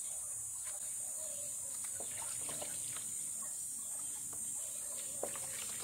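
Water splashing and dripping in a plastic tub as a soapy puppy is washed by hand, with a few short splashes about two seconds in and again near the end.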